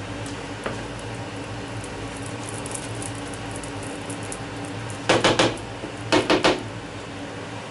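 Wooden spoon stirring peas in a frying pan, then knocked against the pan in two quick runs of three or four sharp taps about a second apart, over a low steady hum.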